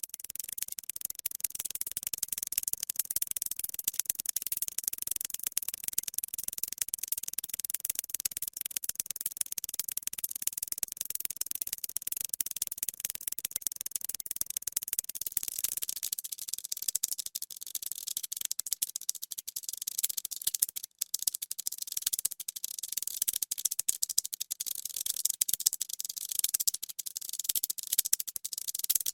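Ants moving in a colony: a dense, fast, high-pitched crackle of tiny clicks and rustles, with a brief break about two-thirds of the way through.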